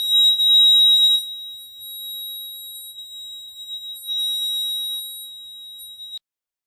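Buzzer of a homemade fire alarm circuit sounding one continuous high-pitched tone, loudest in the first second, wavering in level, then cutting off suddenly about six seconds in. It sounds because the tube-light starter serving as the heat sensor has closed the circuit.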